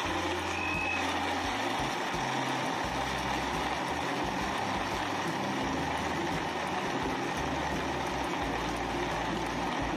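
Countertop blender running steadily at full speed, blending ice and frozen strawberries, raspberries and blueberries into a smooth frappé.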